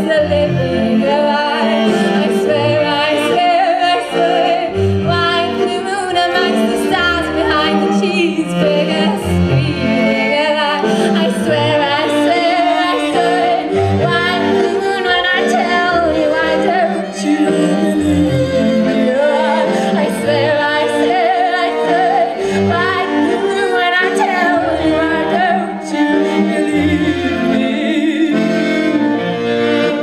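A woman singing with a wavering vibrato, accompanied by piano accordion and cello.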